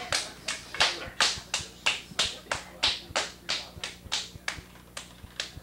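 Hands slapping a large lump of wet clay on a potter's wheel, about three sharp slaps a second in a steady rhythm.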